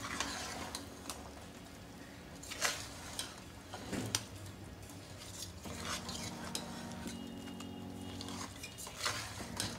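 Perforated steel ladle stirring a thick chicken and broccoli gravy in a stainless steel pot, the wet mixing broken by a few sharp clinks and scrapes of metal on the pot.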